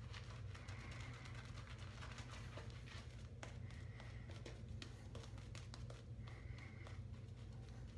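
Boar-bristle shaving brush working shaving-soap lather over a stubbled face: faint swishing strokes with fine crackling of the lather, over a steady low hum.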